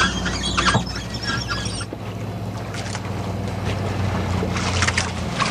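Sailing ship under way at sea: wind and water noise over a steady low drone, with a few sharp knocks or flaps from the ship. The drone drops away near the end.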